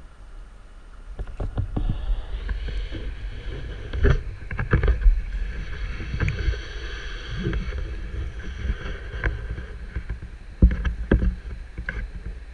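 Water sloshing and splashing around a GoPro's waterproof housing at the stream surface, with a low rumble and several sharp knocks against the housing, louder from about a second in.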